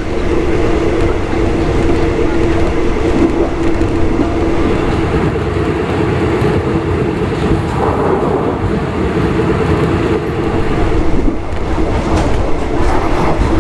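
Passenger train running along the track, heard from inside a third-class coach: a steady rumble of wheels and carriage with a constant drone underneath.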